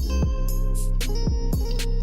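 Background music: a hip hop/R&B beat with kick drum, hi-hats and plucked guitar.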